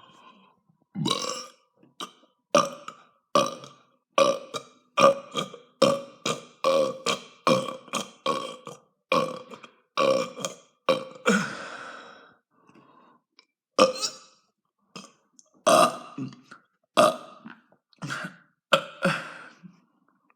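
A person burping over and over in short belches, about two a second, with a longer drawn-out burp about eleven seconds in and a brief pause after it.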